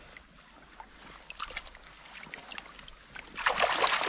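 Shallow river water trickling with small drips and taps around a landing net, then a loud splash near the end from a brown trout at the surface in the net.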